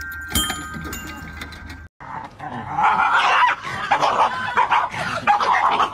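Ringing chime-like tones for the first two seconds, then a dog vocalizing loudly for about four seconds.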